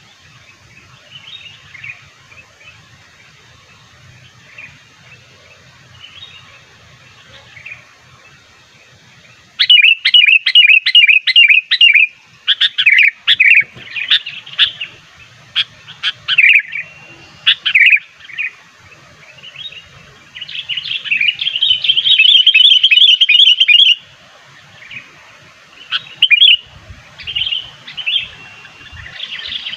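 Sooty-headed bulbul (kutilang) calls played as a lure. The first ten seconds hold faint notes, then loud, rapid chattering runs and short whistled phrases start, with a long, fast trill about two-thirds of the way in.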